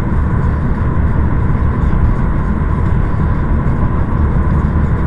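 Steady low rumble of road vehicles, loud and even throughout, with a faint steady whine.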